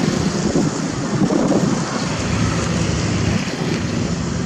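Heavy diesel construction machinery running steadily, with a broad rushing noise over it.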